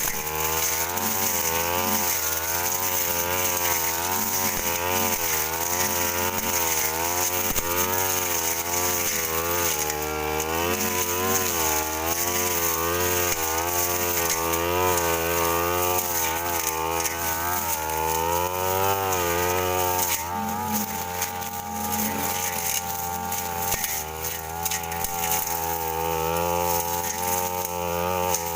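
Stihl brush cutter engine running at high revs with a Tanika blade, its pitch wavering up and down as the blade bites into thick weeds. About twenty seconds in the engine eases off for a few seconds amid clicks from the cutting before picking back up.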